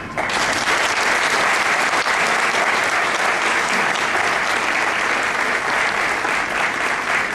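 Audience applauding, breaking out suddenly just after the start and going on steadily.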